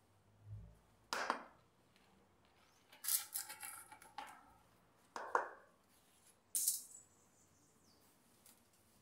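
Short bursts of scraping and rustling from hands working a plant pot and its soil during repotting, with a soft thump about half a second in.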